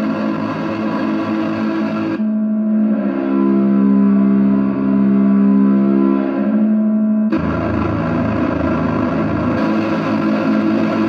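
Guitar played through a chain of effects pedals, including a Walrus Audio Melee, in a dense distorted drone of sustained tones. About two seconds in, the upper hiss falls away and leaves a smoother low held chord. About seven seconds in, the full distorted texture cuts back in suddenly.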